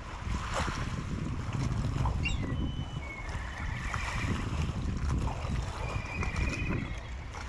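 Wind buffeting the microphone out on the harbour water, a steady low rumble, with a few faint high chirps a couple of seconds in and two short high trills later on.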